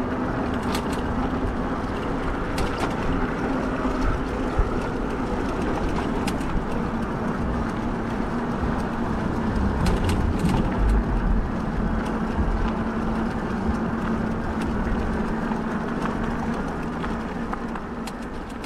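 Fat-tire e-bike riding along a street: wind rumbling on the microphone and tyre noise over a steady hum, with scattered small clicks. It gradually fades toward the end.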